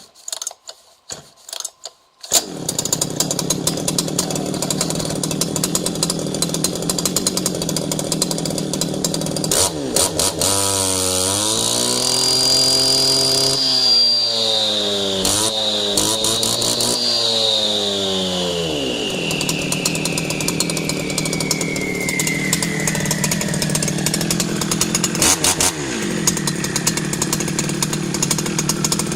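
BAUMR-AG CSX75 two-stroke concrete cut-off saw starting on its recoil pull-start about two seconds in, after a few clicks, then running loudly and steadily. Its engine note dips and swings back up for several seconds about ten seconds in. The starter has one of its four pawls broken off but still catches.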